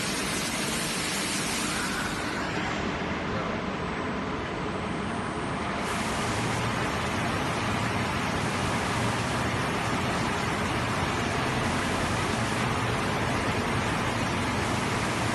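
Zayer CNC milling machine drilling with a gold-coloured drill, a steady hiss of coolant spraying off the tool over the running of the machine.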